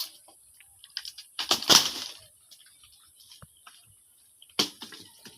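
Hands rummaging in shallow water among submerged branches: irregular splashes and crackles, the loudest a little under two seconds in and another about four and a half seconds in.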